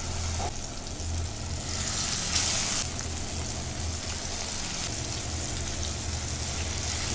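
Masala-coated fish pieces sizzling in hot oil in a frying pan: a steady sizzle that swells briefly about two and a half seconds in.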